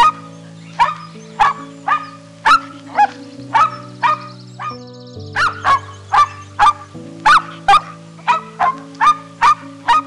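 Cocker spaniels barking in quick, high-pitched yaps, about two or three a second, with a short break about halfway through. Background music with held low chords plays underneath.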